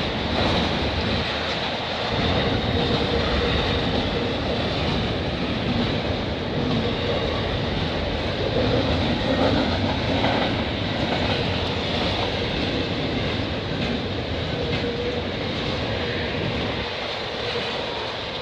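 Double-stack intermodal freight train's container well cars rolling past: a steady rumble of steel wheels on rail, with a thin high tone running through it.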